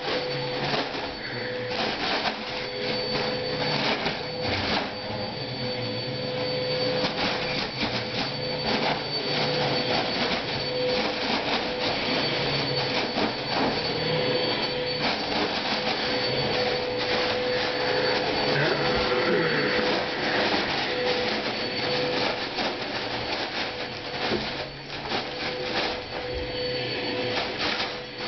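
Foil balloon crinkling and crackling as a Yorkshire terrier bites and shakes it, with a faint steady tone underneath.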